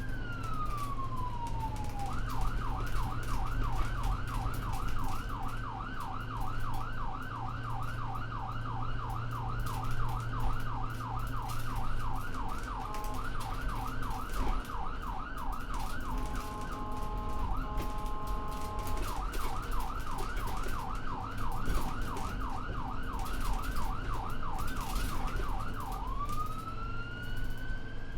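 Emergency-vehicle electronic siren: a falling wail, then a fast yelp of quick up-and-down sweeps, about three or four a second, twice broken in the middle by short steady tones, then back to the yelp and a rising wail near the end. A low engine rumble runs underneath.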